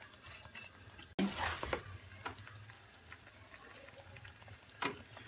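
Wooden spoon stirring and scraping chopped almonds into thick roasted gram-flour-and-ghee mixture in a steel pan, faint, with a few soft scrapes and clicks. The sound breaks off abruptly about a second in and resumes slightly louder.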